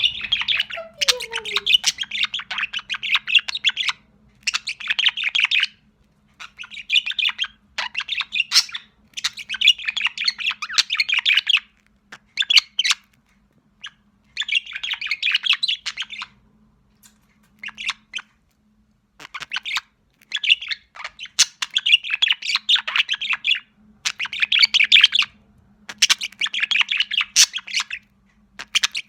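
Young budgerigar chattering: rapid, scratchy warbling in bursts of one to three seconds, with short pauses between them.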